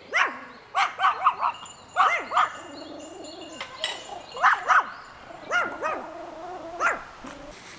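Chihuahua barking: about a dozen short, sharp yaps in quick clusters.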